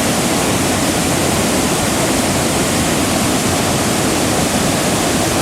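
Large multi-tiered waterfall, water pouring down over rocks in a loud, steady rush.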